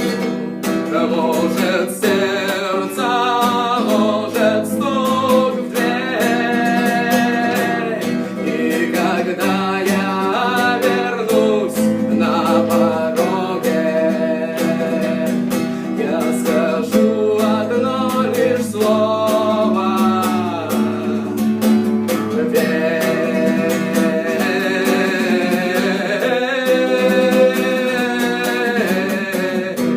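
Acoustic guitar strummed and picked continuously, with a voice singing along.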